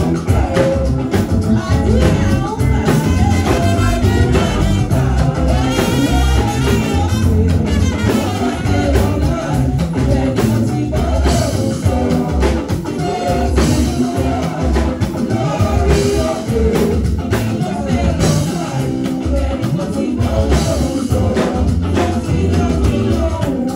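Live church praise and worship music: voices singing over a band with drums and a steady beat.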